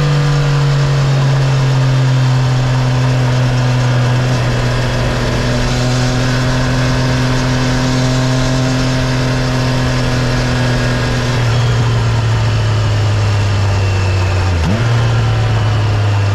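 Triumph Tiger 660's inline three-cylinder engine through its standard exhaust, running under way at steady revs with wind and road noise. The engine note sags slowly, drops a little about eleven seconds in, and dips sharply and recovers near the end.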